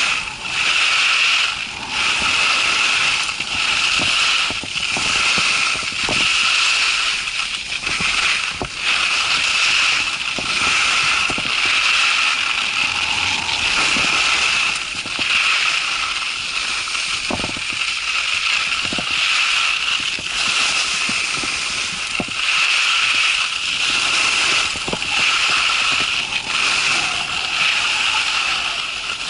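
Skis sliding and scraping over snow in a run of turns, swelling and easing about every one to two seconds, with strong wind rushing over the camera microphone and a few low knocks.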